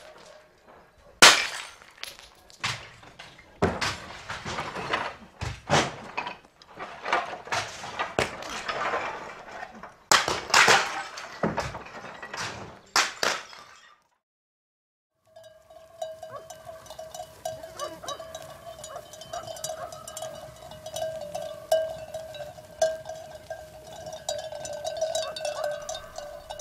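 A string of loud, sharp crashes and clatters, like hard objects being thrown down and breaking, which stops dead about fourteen seconds in. After a moment of silence, sheep bells on a flock clank and ring without pause.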